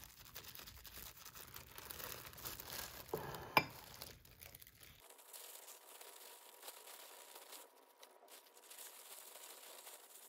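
Thin disposable plastic gloves crinkling as hands press rice into fried tofu pouches, with one sharp click about three and a half seconds in. After about five seconds the crinkling turns fainter.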